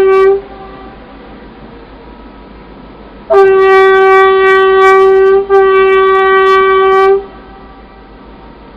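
Mid-size boat air horn: a short honk ending just after the start, then about three seconds in a long steady blast of nearly four seconds, broken by a brief gap halfway through. One steady pitch with rich overtones and a light echo as it stops.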